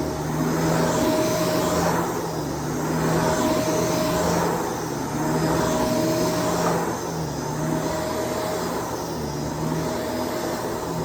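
Shark DuoClean PowerFins vacuum cleaner running steadily. Its motor hum swells and dips about every two and a half seconds as it is pushed back and forth.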